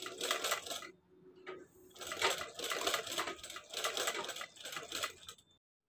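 Sewing machine stitching in short runs with a rapid ticking. It stops about a second in, starts again about two seconds in, and runs until just before the end.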